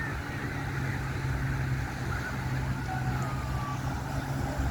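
Steady low engine drone, with faint wavering high-pitched sounds above it.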